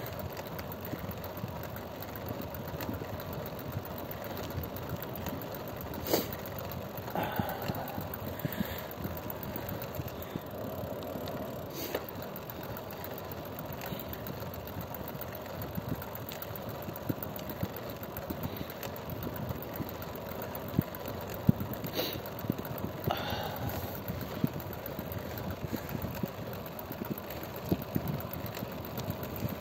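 A vehicle engine running steadily on the move, with a few sharp knocks or clicks along the way.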